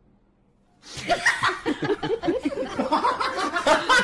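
A person laughing in a long run of quick repeated bursts, starting about a second in after a brief silence.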